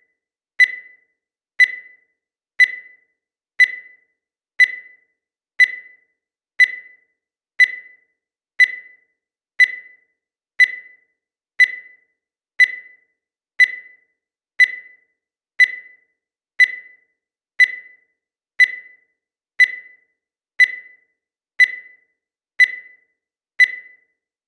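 Digital countdown timer beeping once every second, each beep marking one second of the count: a short high electronic beep that dies away quickly, repeated evenly about two dozen times.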